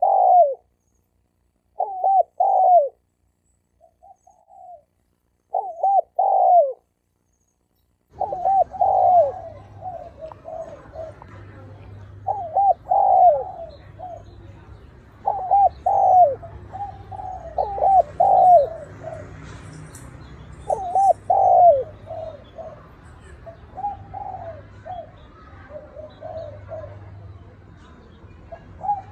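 Spotted doves cooing: repeated phrases of short, falling coos, the challenge calls of wild male doves against each other. The phrases are spaced with silent gaps at first; about eight seconds in, a low hum and hiss come in and the coos follow more closely.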